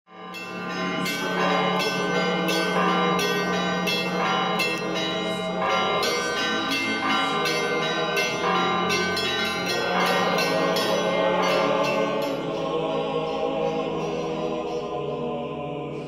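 Russian Orthodox church bells ringing a peal: many quick, irregular strikes of smaller bells over the steady hum of a large bell. The strikes stop about twelve seconds in, leaving the bells ringing on and fading.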